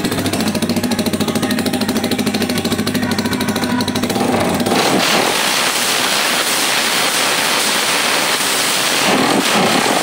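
Rusi Classic 250i motorcycle engine idling through an open 51 mm elbow exhaust with fast, even firing pulses. About five seconds in, a triple-outlet stainless tip is held onto the pipe and the exhaust turns into a loud, breathy rushing hiss.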